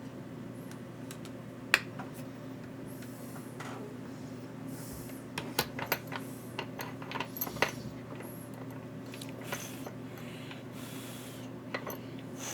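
Small hard clicks and taps of tools and connector parts being handled on a workbench, one sharp click about two seconds in and a quick cluster in the middle, over a steady low hum and a few brief soft hisses.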